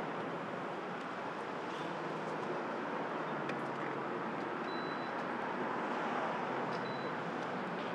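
A car driving in slowly at close range and pulling up to the pump, over steady traffic noise; the engine and tyre noise swells a little near the end.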